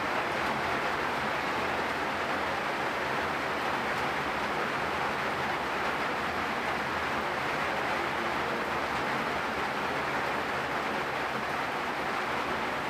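Steady rain falling: an even, unbroken hiss with no single drops or other events standing out.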